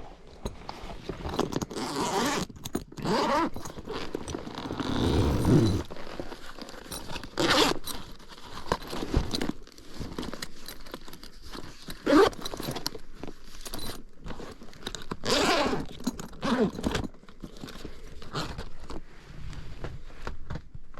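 Irregular scraping, rustling and zipper-like rasps of hand tools and metal parts being handled during work on a gas furnace's flame sensor mounting.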